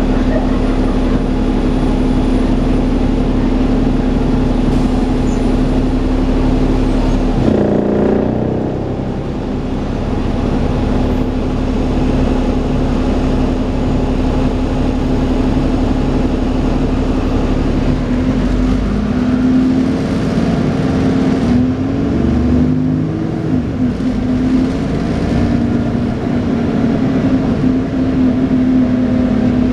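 Dennis Trident 2 double-decker bus running with a steady, vacuum-cleaner-like whine (the 'hoover') over its engine note. The engine note drops about a quarter of the way in, and the pitch wavers up and down through the second half as the bus changes speed.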